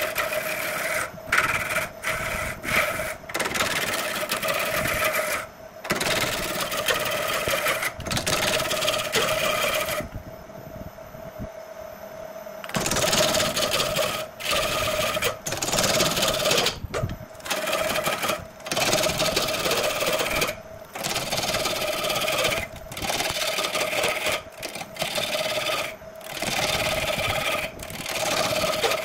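Wood lathe turning a log while a hand-held gouge cuts into it, shavings tearing off in a loud rough rasp over the lathe's steady hum. The cutting stops and restarts every second or so as the tool lifts off, and for about three seconds in the middle only the quieter running of the lathe is heard.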